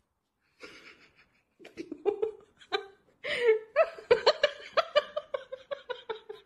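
A person laughing: a few short bursts at first, then about halfway through a run of rapid, pitched laughter at about five pulses a second that carries on to the end.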